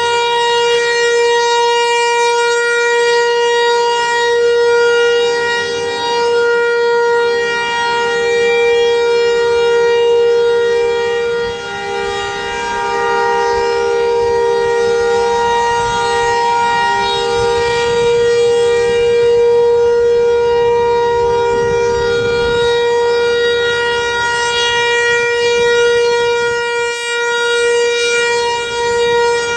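Federal Signal 508 outdoor warning siren sounding its steady alert tone in a weekly test. The pitch holds steady while the loudness swells and dips slowly.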